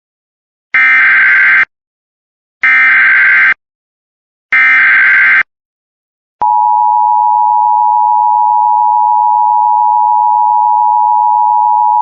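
Emergency Alert System header: three identical bursts of screeching digital data, each about a second long, followed about six and a half seconds in by a steady, loud attention tone that holds without a break.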